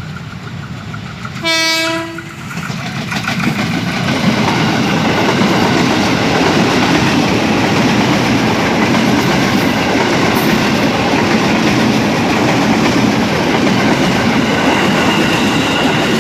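KRL electric commuter train sounding one short, single-pitched horn blast a little under two seconds in, then passing close, its loud running noise building and holding steady.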